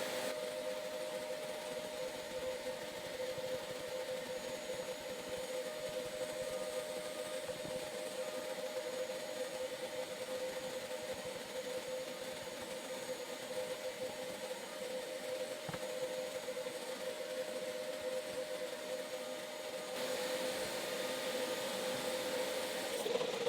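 A small electric motor running steadily, a constant whine over a hiss, shifting slightly about twenty seconds in.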